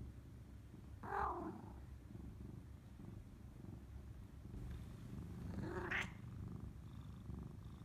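Domestic cat purring softly in a low, steady rumble, with two brief higher sounds: one about a second in, and a rising one near six seconds.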